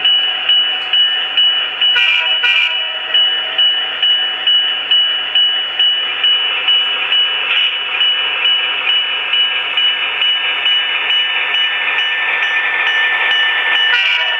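Sound decoder of an HO-scale Proto 2000 Alco RS-27 model locomotive playing diesel locomotive sounds through its small onboard speaker while the model runs back and forth. A steady, high-pitched engine drone carries a regular beat of about one and a half pulses a second through the first half.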